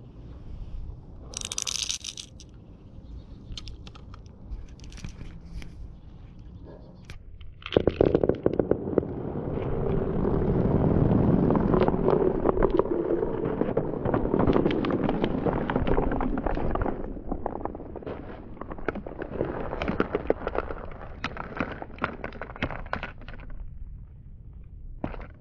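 Many glass marbles rolling and clattering down a marble-run track. Scattered light clicks at first, then a loud, dense run of clicks and knocks over a rolling rumble starts abruptly about a third of the way in. It gradually thins to sparser clicks near the end.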